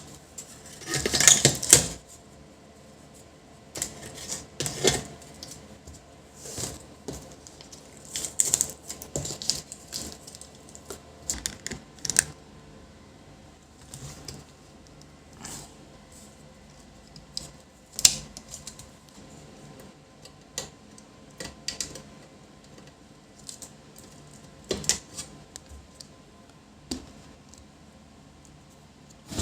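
Irregular clicks, taps and short scrapes of hands and tools handling the parts of an LCD monitor as its repaired power supply board is fitted back in and the monitor is put back together.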